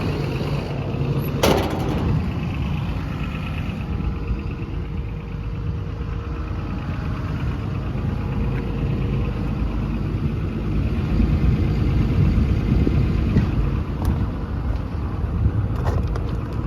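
Komatsu PC210LC-11 excavator's six-cylinder diesel engine idling steadily, with a sharp knock about a second and a half in and a few clicks near the end.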